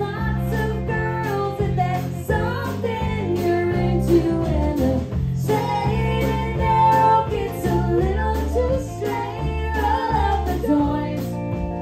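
A woman singing lead into a microphone over a live band with guitar, her voice amplified through the stage PA.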